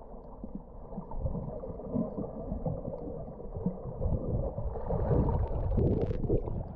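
Muffled underwater rumble of water rushing past a submerged camera, with bursts of crackling and bubbling from about five seconds in.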